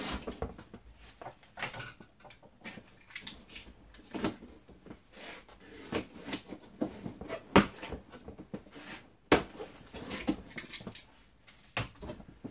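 Cardboard box being opened and its packaging handled: irregular scrapes, rustles and knocks, with two sharper knocks in the second half.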